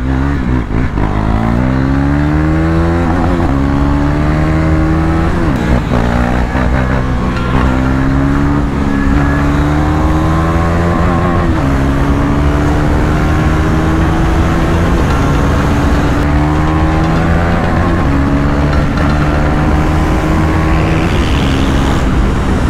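KTM Duke 390 single-cylinder engine under hard acceleration. Its pitch climbs and drops back at each upshift several times, then it holds a high, fairly steady note at speed.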